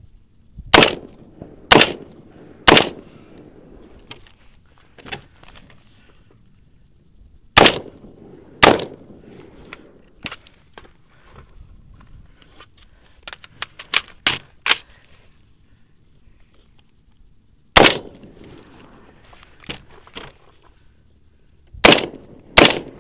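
Shots from a 5.56 AR-15 carbine with a mid-length BCM upper and BCM compensator: eight loud shots in all. Three come about a second apart near the start, a pair about a second apart some eight seconds in, a single shot later, and two close together near the end, with fainter sharp cracks in between.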